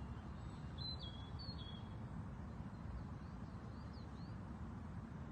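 Songbirds calling: two short whistled calls about a second in, each stepping down in pitch, then a few faint chirps, over a steady low background rumble.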